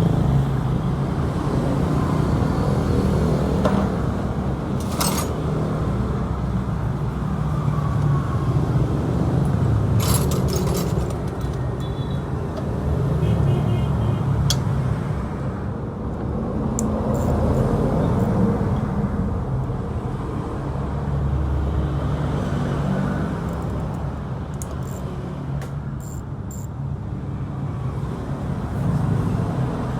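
Motorcycle engine running, its level rising and easing slowly, with a few sharp clicks and taps.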